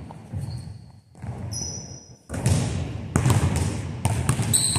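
Basketballs bouncing on a hardwood gym floor, a series of knocks, with a few short high squeaks of sneakers on the court.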